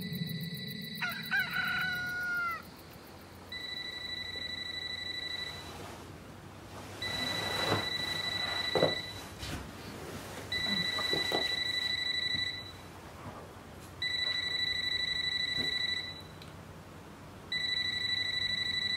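A rooster crows once, then a trilled electronic ring sounds five times. Each ring lasts about two seconds, with gaps of about a second and a half. Soft rustling of movement falls between the rings.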